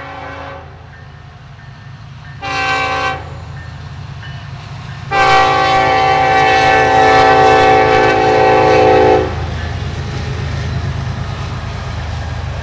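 Air horn of a Norfolk Southern EMD SD70ACe diesel locomotive, the end of its grade-crossing signal: a blast that cuts off just after the start, a short blast about two and a half seconds in, then a loud long blast of about four seconds starting about five seconds in. A steady low rumble from the passing freight train runs underneath.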